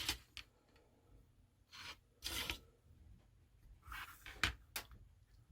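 Plastic model kit parts and their packaging being handled: faint, short rustles with a few light clicks, the loudest near the start and about four and a half seconds in.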